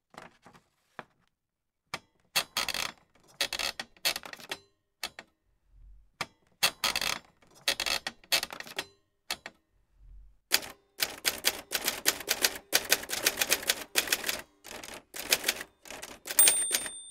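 Typewriter keys struck in short, hesitant clusters with long pauses between them, then fast, continuous typing from about ten seconds in. Near the end a bell rings once, like a typewriter's margin bell, and keeps ringing.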